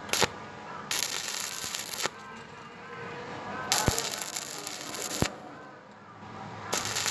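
Stick welding arc on steel square tube: the electrode crackles and sputters in three short runs of about a second each, with pauses between, and a few sharp clicks.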